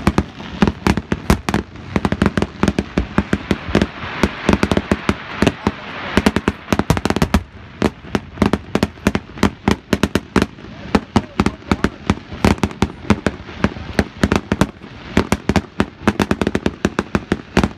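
Fireworks display: a rapid, continuous string of sharp bangs from bursting shells, several a second, with a thicker hiss between them from about four to seven seconds in.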